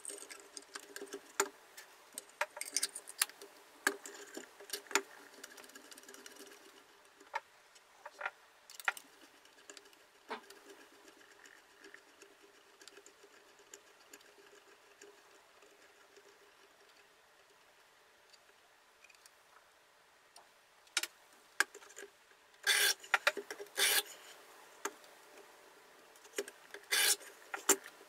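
Clicks and taps from handling the stone-holder arms of a KMFS Rival knife sharpening jig and turning the adjuster on its threaded rod, with a quieter stretch in the middle. Near the end come louder bursts of rubbing as the diamond plates are brought against the blade.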